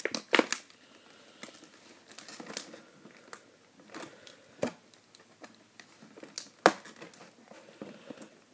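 Plastic toy packaging crinkling and rustling as a pony figure is worked free of its box, with a few sharp clicks and snaps, the loudest near the end.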